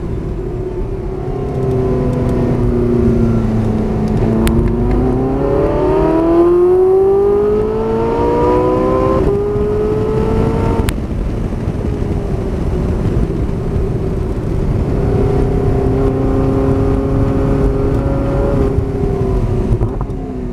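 Porsche 918 Spyder's V8 heard from the open cockpit while lapping a track. The engine note dips, then climbs steadily under hard acceleration with a gear change about nine seconds in. Later it holds steady and falls near the end as the car slows for a corner.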